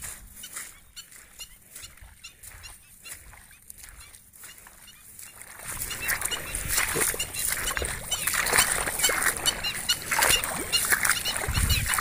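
Black-winged stilts giving their repeated short yapping calls. A louder rushing noise joins about halfway.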